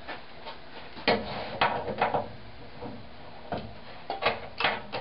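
Scattered knocks and clunks of a miter gauge being fitted and positioned on a sliding tablesaw's table, about six short strikes with pauses between.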